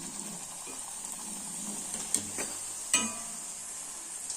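Luchis deep-frying in hot oil in a kadai: a steady sizzle, with two sharp clinks about two and three seconds in.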